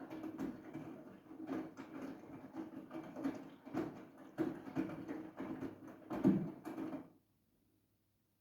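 Siemens iQ700 washing machine drum turning during a wash, laundry tumbling in irregular soft thumps. The drum stops abruptly about seven seconds in.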